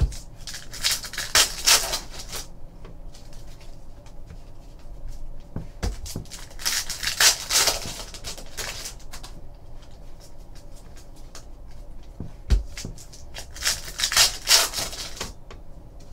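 Foil trading-card pack wrappers crinkling and tearing open, with cards being handled, in three bursts of crackling. A few soft knocks come from packs or cards set down on the table.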